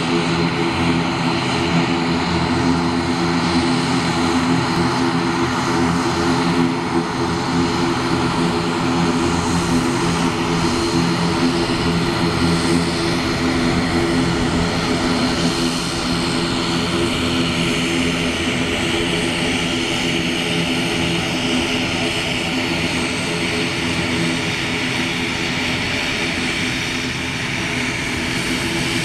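An ATR72-600 turboprop's two Pratt & Whitney PW127M engines running at taxi power: a steady propeller drone made of several held tones over a rushing hiss.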